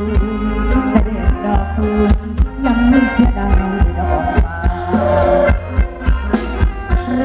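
Live band playing Thai ramwong dance music: an instrumental passage with sustained melody over a steady drum beat.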